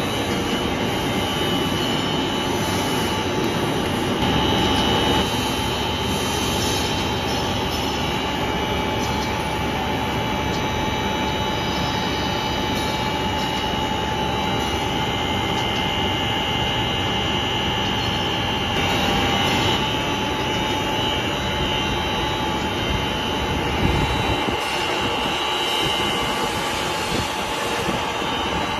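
Double-layer blown film extrusion machine running: a steady mechanical din from its blower and motors, with a steady high whine over it.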